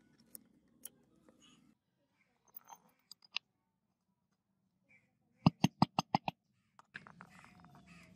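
Metal drill parts being handled and fitted by hand: a few light clicks, then a quick run of about eight sharp taps a little past halfway, then soft handling noise near the end as a washer goes onto the housing.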